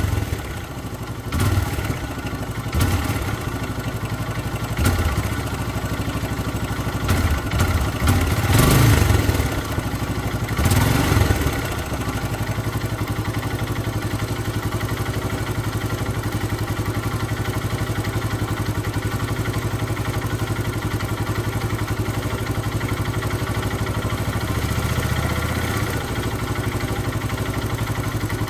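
Hero Karizma R motorcycle's single-cylinder engine blipped with several short throttle revs, then settling into a steady idle from about twelve seconds in. The owner presents the engine's sound as a problem.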